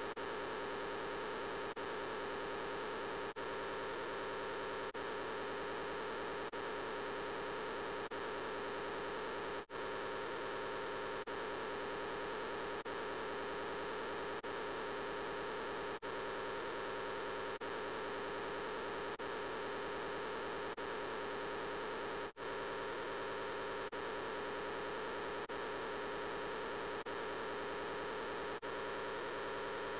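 The 'I'm Peppa Pig' voice line layered over itself a huge number of times, merged into a dense, steady hum-like noise in which no words can be made out. It dips briefly about every 1.6 seconds.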